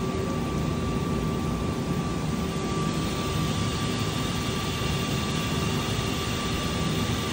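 Haas VR-11B machining center's spindle spinning a tool with no cut, a steady machine hum with a thin whine. About three seconds in, a higher whine joins as the spindle steps up in speed.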